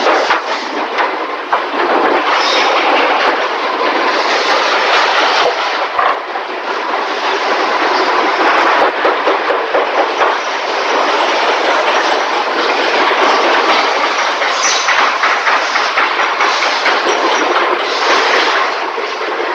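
Factory din in a car-body assembly shop: a steady, loud clatter of machinery and metalworking, thick with small metallic clicks and knocks.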